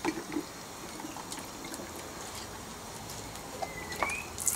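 Small splashes and trickling of water as a child's hands dabble in a plastic bucket, with faint knocks of plastic, and a brief rising squeak near the end.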